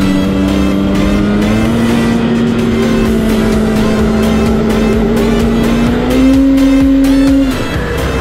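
Polaris Switchback Assault snowmobile's two-stroke engine running at a steady trail cruise, its pitch stepping up slightly about a second and a half in and again about six seconds in, then easing off near the end.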